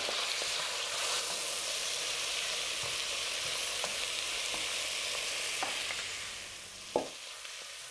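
Diced pheasant sizzling as it browns in hot oil in a deep pan, stirred with a wooden spoon. The sizzle eases off near the end, with one short knock just before it ends.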